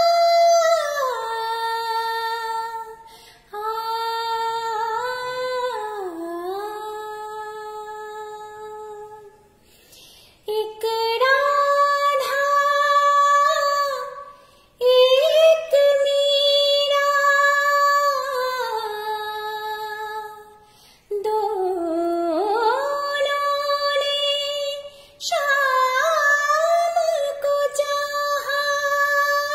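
A woman singing solo, holding long notes and sliding between pitches in phrases of a few seconds, each parted by a brief pause for breath.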